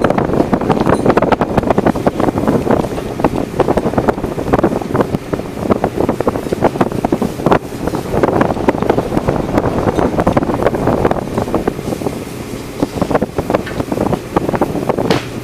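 Wind buffeting the microphone over the steady noise of a longline fishing vessel underway, with a faint low engine hum beneath.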